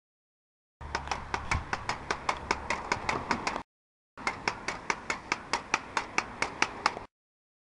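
Quick, regular clacks of a pogo stick bouncing on pavement, about four a second, broken by short gaps of dead silence.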